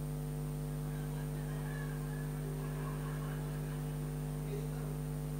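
Steady electrical mains hum, unchanging, with faint indistinct sounds beneath it.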